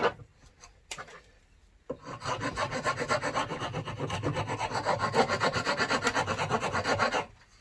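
Plywood being shaped by hand with fast back-and-forth abrasive rubbing strokes, several a second. The strokes start about two seconds in and stop shortly before the end, after a couple of light knocks at the start.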